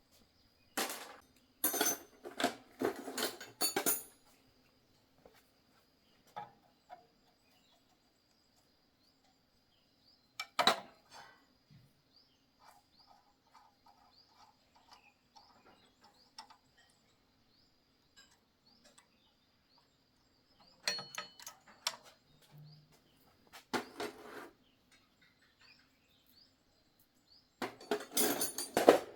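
Metal tools and parts clinking and knocking in short clusters of sharp clicks, with quiet stretches between, as an engine is being worked on by hand.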